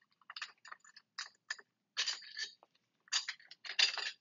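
Half-inch socket ratchet wrench working a clamp bolt loose: irregular metal clicking and scraping, busier and louder near the end.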